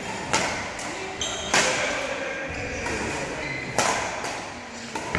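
A badminton rally: rackets striking the shuttlecock, three sharp smacks one to two seconds apart, ringing in a large sports hall, with fainter knocks near the end.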